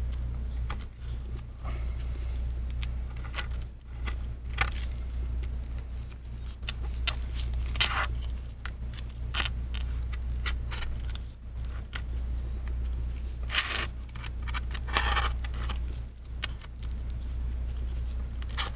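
Scattered scrapes and clicks of a pry tool and broken glass fragments against an iPad's metal frame, as glass shards and glue residue are cleared from the edge, over a steady low hum.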